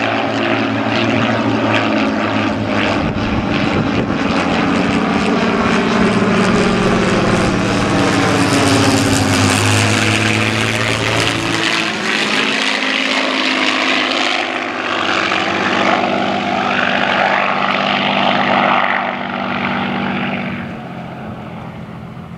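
Rolls-Royce Kestrel V12 engines of Hawker biplanes passing overhead at display power. The loud, steady propeller-engine note bends and phases as they go over, about halfway through, then fades as the aircraft draw away near the end.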